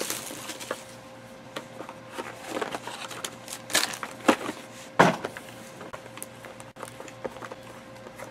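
Cardboard box and foil packaging being handled and opened: scattered rustling and light taps, with a couple of sharper knocks, the loudest about five seconds in.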